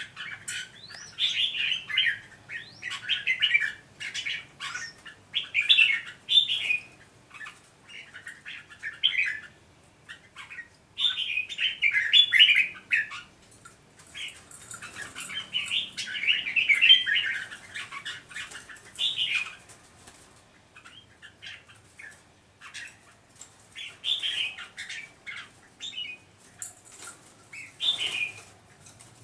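Two caged red-whiskered bulbuls calling in short, chattering bursts every few seconds while squaring off through the bars, with wings fluttering and knocking against the cages: agitated, territorial calling between rival males.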